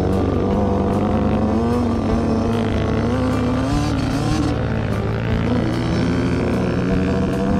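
Yamaha YZ85 two-stroke dirt bike engine running under load, its pitch rising and falling as the throttle is worked.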